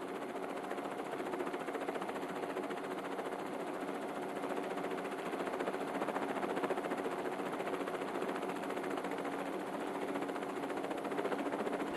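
Helicopter rotor and turbine running steadily: a rapid, even chatter with a constant whine.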